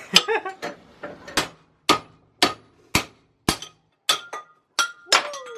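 Hammer striking metal in a steady series of about a dozen sharp blows, roughly two a second, some of them ringing briefly. The blows are driving the old steel insert out of a control-arm bushing.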